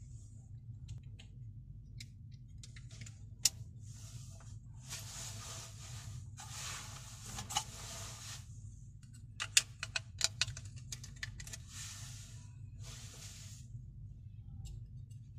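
Handling noise from fitting a small LED circuit board into a panel opening and picking up its clear plastic cover: rustling and sharp small clicks, with a quick run of clicks about ten seconds in. A steady low hum lies underneath.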